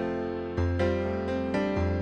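Background piano music: sustained chords with struck notes.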